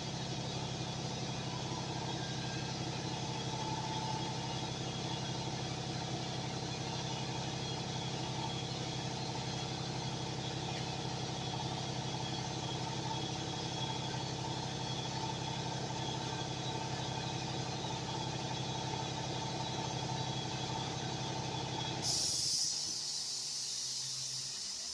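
Shop air compressor running with a steady hum, then shutting off about twenty-two seconds in, followed by a short hiss that fades away.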